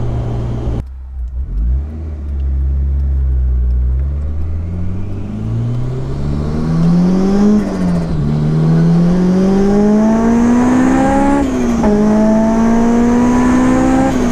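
Supercharged Honda S2000's four-cylinder engine accelerating hard in the open-top car, its note climbing steadily in pitch. It drops sharply twice, about halfway and about two-thirds through, as the driver upshifts, and climbs again after each shift.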